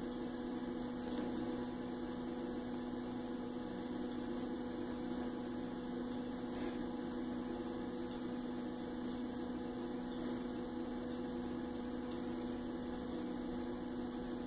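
Steady electrical hum at an even pitch, with a higher overtone, that holds unchanged throughout; two very faint ticks come in the middle.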